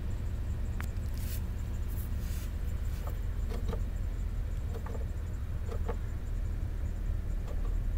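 2005 Chevrolet Silverado 2500HD's engine idling, a steady low rumble heard from inside the cab. A few faint short squeaks come in pairs through the middle.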